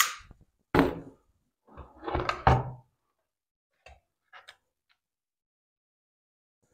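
Several knocks and thuds of tools and plastic on a workbench in the first three seconds as a cordless drill is set down and a string trimmer's engine is handled, then a few faint plastic clicks as its engine shroud is worked loose.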